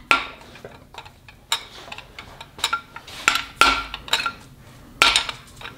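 Irregular sharp metallic clinks and scrapes of a steel flathead screwdriver working against the old intermediate shaft bearing in a VR6 engine block as the bearing is driven out, several clinks with a brief ring.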